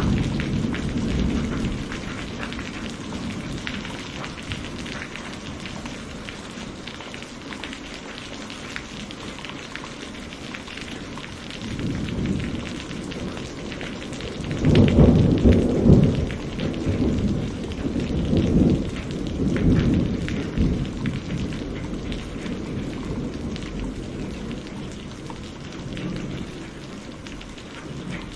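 Steady heavy rain falling, with rolling thunder. A rumble fades away at the start, and a louder one builds about twelve seconds in, peaks a few seconds later and rolls on in waves before dying back to the rain.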